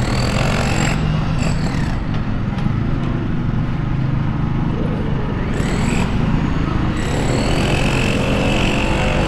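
Busy city-centre street ambience: a steady low rumble of distant traffic under the general noise of a crowd of shoppers walking past.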